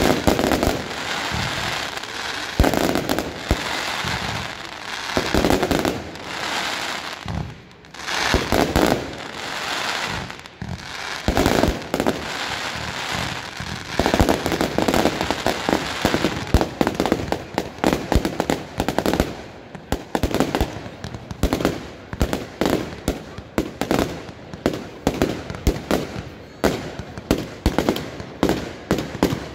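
Aerial fireworks going off in quick succession: dense crackling and booming bursts, turning about halfway through into a fast, unbroken run of sharp bangs, several a second.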